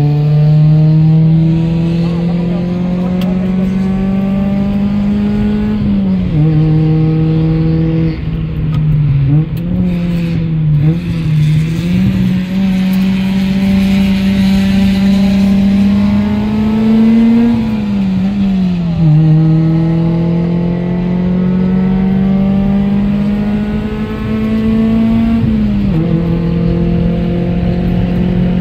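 Car engine heard from inside the cabin under hard acceleration on a race track, its pitch climbing steadily through each gear. Sudden drops in pitch about six, nineteen and twenty-six seconds in mark upshifts. Around eight to twelve seconds in the revs fall and waver as the car slows for a corner.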